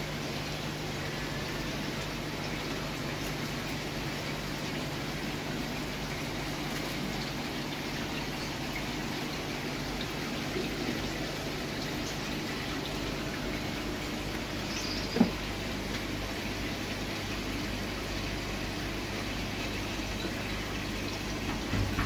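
Steady water and bubbling from aquarium aerators and filters, over a low steady hum; a single sharp click about fifteen seconds in.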